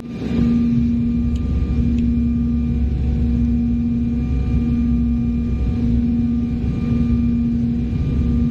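Cabin noise inside an Embraer E190 airliner in flight: a steady rush of jet engine and airflow noise with a strong steady low hum and fainter higher steady tones above it.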